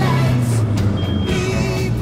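Background music, with a steady low bass line under sustained melodic lines.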